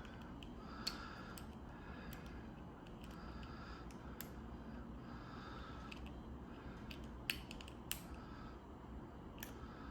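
Disc-detainer lock being picked: a pick scraping faintly inside the keyway, with a few sharp small clicks, one about a second in and several between seven and ten seconds.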